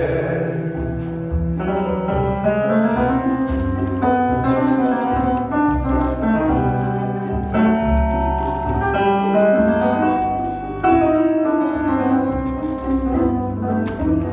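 Instrumental passage of a sung tango-style song, between two verses: piano and bowed strings play over a bass line.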